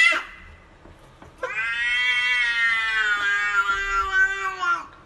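Domestic cat meowing: the end of a rising meow cuts off at the very start, then about a second and a half in comes one long drawn-out meow, lasting about three and a half seconds, that holds its pitch and sags slightly as it ends.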